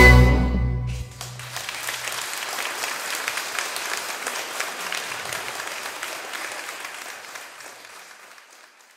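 The ensemble's final chord cuts off about a second in, with a low note dying away just after, and audience applause follows, steady at first and fading out near the end.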